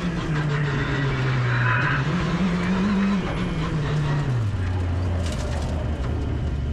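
Škoda Fabia RS Rally2's turbocharged 1.6-litre four-cylinder engine heard from inside the cabin, its note rising briefly about three seconds in, then falling to a lower steady pitch a little after four seconds as the revs drop and hold.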